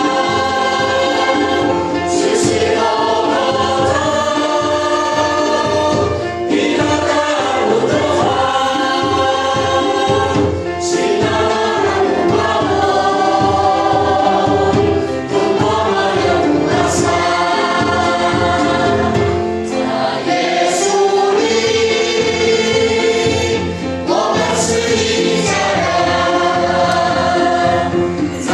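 A church congregation singing a hymn together, phrase by phrase, with short breaks for breath between lines.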